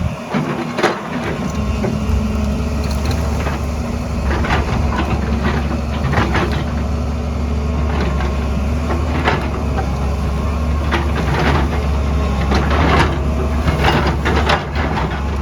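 A hydraulic excavator's diesel engine runs steadily while the bucket works rock and soil, with irregular cracks and crunches of breaking rock throughout.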